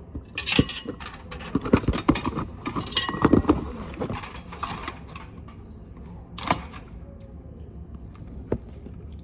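Handling noise from a smartphone being gripped and set up right against its microphone: a flurry of rustles, taps and clicks, then a single sharp knock a few seconds later as it settles.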